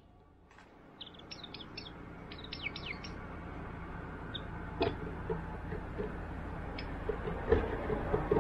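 Japanese white-eye calling: a quick run of thin, high, falling chirps about a second in, then single chirps spaced out. A few sharp knocks come later, over a background hiss that grows louder.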